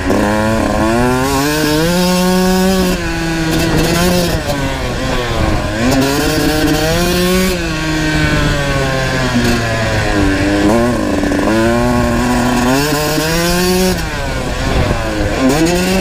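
Kawasaki KX125 single-cylinder two-stroke dirt bike engine under hard riding on a motocross track. Its revs climb and drop in pitch again and again as the rider accelerates, shifts and backs off.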